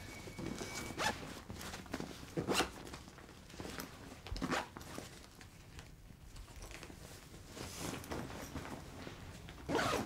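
A zipper pulled in several short strokes, with a louder pull near the end.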